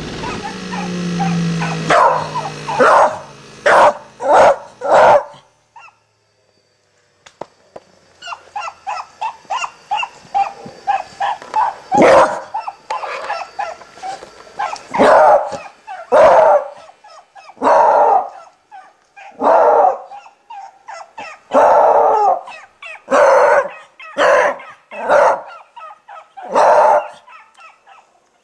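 A beagle barking repeatedly. A run of five quick barks is followed by a short silence, then a longer series of loud barks about every second or two, with smaller yips between them.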